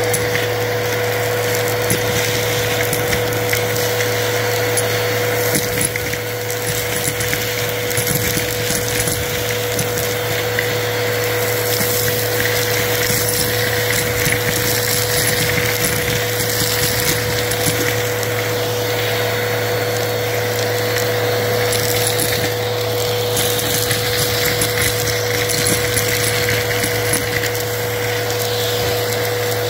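Vacuum cleaner running steadily through a bristled dusting-brush attachment, with a constant motor hum. It crunches up glitter, beads and sequins, and many short clicks and rattles of the pieces sound over the hum.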